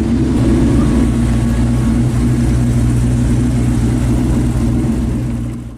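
A steady, low engine rumble, like a car engine running at a constant speed, which cuts off abruptly near the end.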